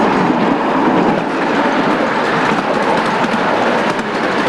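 Steam-hauled 7.25-inch gauge miniature railway train running, its wheels clattering steadily over the track, heard from a riding car.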